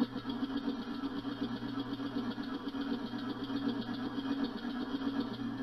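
Prototype oval-ring compressed-air engine running steadily on about 110 psi of shop air, with a rapid, even pulsing of exhaust air.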